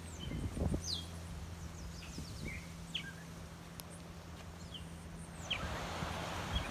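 Outdoor ambience with birds giving several short, high chirps that slide downward, scattered throughout, over a steady low hum and background hiss that grows slightly louder near the end.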